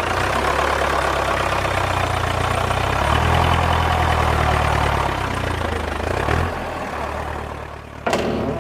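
An engine running steadily with a low hum, getting louder about a third of the way in and easing off past the middle; a sharp click near the end.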